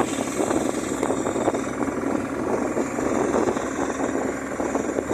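Boat engine running steadily while the vessel is under way, a constant dense drone with a fast, fine flutter in it.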